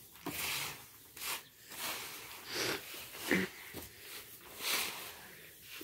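Hands kneading crumbled rice-cake starter (apop) into a heap of cooked sticky rice for rice beer. Each stroke makes a soft rustling squish, about six strokes at an uneven pace.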